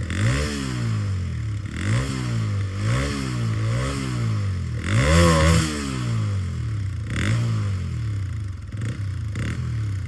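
TVS Raider 125's single-cylinder engine on its stock exhaust, revved in repeated throttle blips, each rising and dropping back toward idle. The biggest rev comes about five seconds in.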